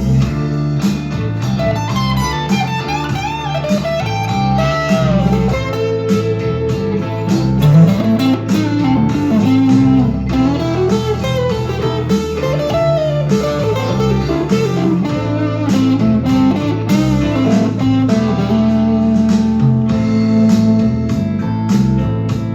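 Harley Benton TE-62CC Telecaster-style electric guitar played through an amp: bluesy lead lines full of string bends, over a steady rhythmic backing.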